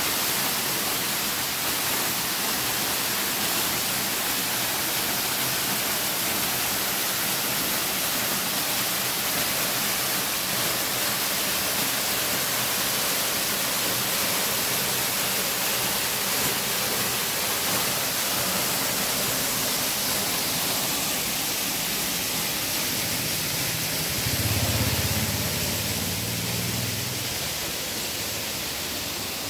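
Steady rushing of a waterfall pouring down a rock face. About three-quarters of the way through, a low rumble swells for a couple of seconds, and the rush fades slightly near the end.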